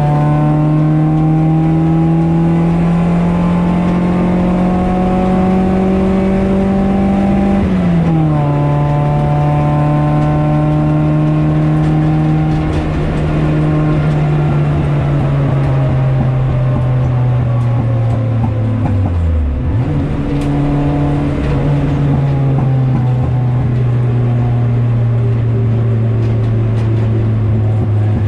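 Car engine heard from inside the cabin while lapping a circuit. Revs climb steadily for about eight seconds, then drop sharply with an upshift. After that they hold and slowly fall, with a brief sharp dip and recovery a little past two-thirds of the way through.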